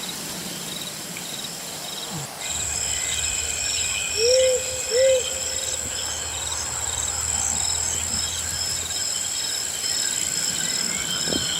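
Forest insects chirring steadily at a high pitch, with two short hoot-like calls about four and five seconds in.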